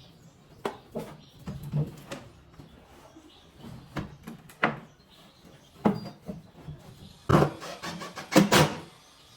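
Irregular knocks and clunks of wooden cabinet boards being handled and fitted together, with about a dozen separate hits and the loudest near the end.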